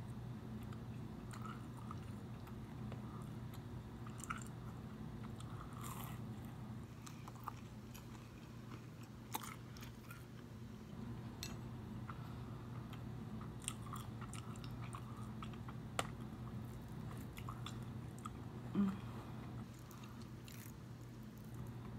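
Close chewing and biting of toasted raisin bread: crunchy bites and small wet mouth clicks scattered through, over a steady low background hum. A brief low hum sounds near the end, the loudest moment.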